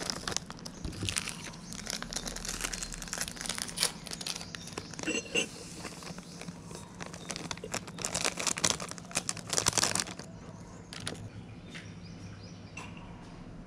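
Packaging sachets crinkling and rustling as a hand rummages through them in a cup, with many sharp crackles, stopping about ten seconds in.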